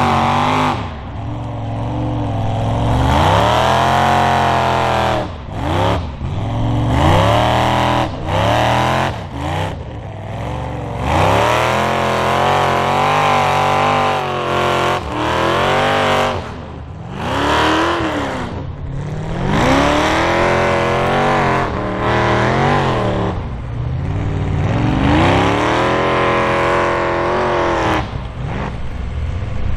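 Four-door mud truck's engine revving hard again and again as it digs through the mud pit, its pitch climbing and dropping every second or two.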